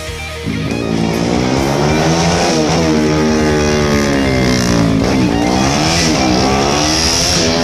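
Racing motorcycle engine running hard under a rider, its pitch climbing and dropping several times as it revs up and comes off the throttle.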